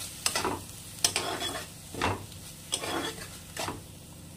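A spatula stirs and scrapes green tomato paste around a black iron kadai in irregular strokes, about one every half to one second. Under the strokes is a light sizzle of the paste frying in mustard oil.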